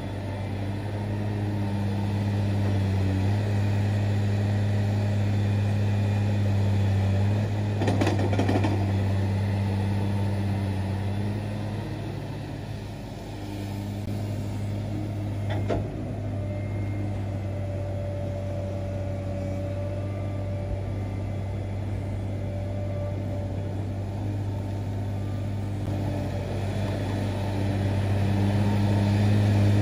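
Komatsu hydraulic excavator's diesel engine running under digging load, a steady low hum that swells and eases as the machine works. A short rush of noise comes about eight seconds in, and a single sharp knock comes about halfway through.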